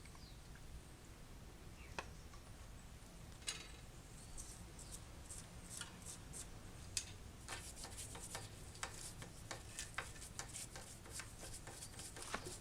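Toothbrush scrubbing a grimy bicycle chain and sprocket with kerosene: faint short scratchy strokes, a few isolated ones at first, then a quicker, irregular run from about halfway through.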